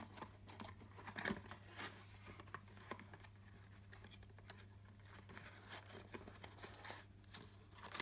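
Faint handling noise of a small cardboard box being opened by hand: light rustling and scattered soft clicks, over a steady low hum.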